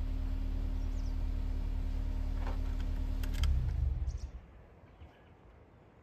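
Vehicle engine idling steadily, then a short louder rumble about three and a half seconds in as it is switched off, leaving a much quieter background.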